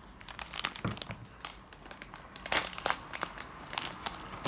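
Plastic-film wrappers of individually packaged beni-imo tarts crinkling as they are handled, in a run of irregular crackles, the loudest about two and a half seconds in.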